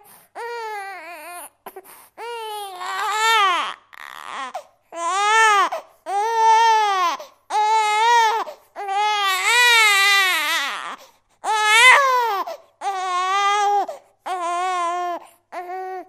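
A baby crying hard: a string of about ten wails, each about a second long and rising then falling in pitch, with short pauses between.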